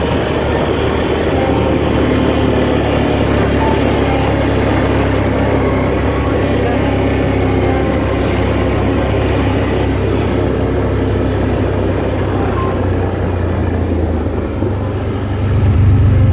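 Quad (ATV) engine running steadily while riding along a gravel road, with a loud low hum and a rough noise over it; the engine gets louder near the end.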